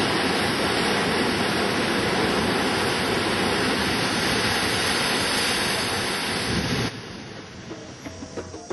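Loud, steady rushing noise, cutting off abruptly about seven seconds in.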